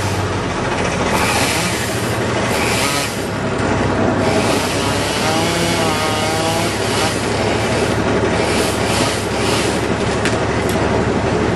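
An engine running steadily, with a wavering whine rising and falling about five to seven seconds in.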